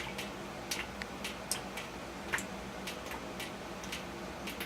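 Water drops falling into a washing machine's tub, sharp irregular drips about twice a second, over a steady low hum. The water comes from the machine's water valves, which are leaking even when closed.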